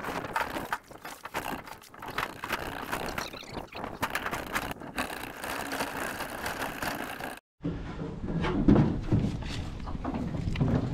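A 212cc 6.5 hp Honda-clone single-cylinder four-stroke engine running, driving a homemade jet-boat unit. About seven and a half seconds in there is a brief break, after which the sound is lower and louder.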